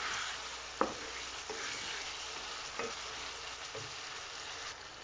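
Chicken, tomatoes and ground spices sizzling in hot oil in a metal karahi while a wooden spatula stirs and scrapes through them, with a few sharp knocks of the spatula on the pan, the sharpest about a second in. This is the masala being fried (bhuna) until well roasted.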